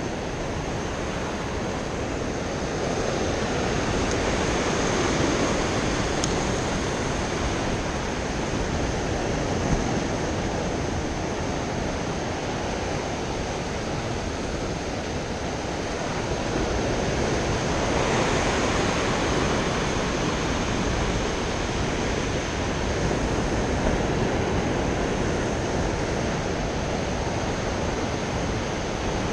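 Rough ocean surf washing and breaking against a rocky shoreline, an even rushing that swells louder a few times.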